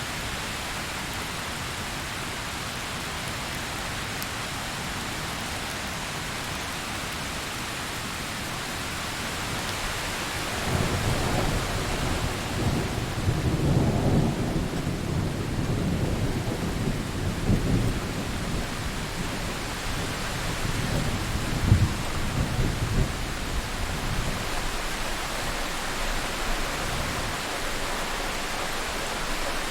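Thunderstorm: steady heavy rain throughout, with a long rolling thunder rumble building about ten seconds in and fading over the following fifteen seconds, with a sharper crack partway through.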